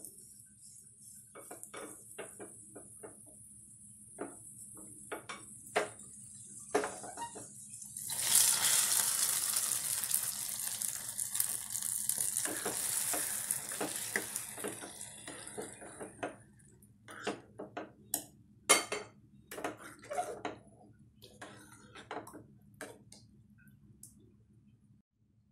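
Cashews and raisins sizzling in hot ghee in a small pan, with the spoon clinking against it as they are stirred. About eight seconds in, the hot ghee and nuts are poured onto the milky payasam in an aluminium pressure cooker, making a louder sizzle that dies away over several seconds. A spoon then knocks and scrapes in the cooker as the tempering is stirred in.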